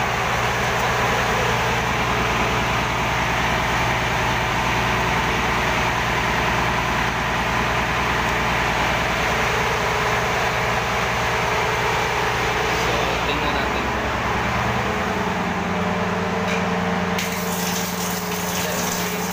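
Steady hum of a ship's running machinery. About fifteen seconds in, the low hum shifts in pitch, and near the end a hiss and crackle comes in.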